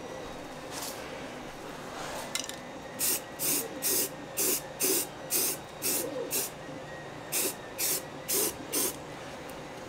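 Aerosol spray can being sprayed onto a 3D-printed helmet in short bursts: one brief hiss, then about a dozen quick hisses roughly two a second, with a short pause partway through.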